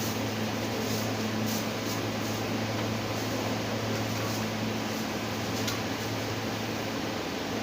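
Steady mechanical hum, like a fan or air-conditioning unit running, with a few faint ticks.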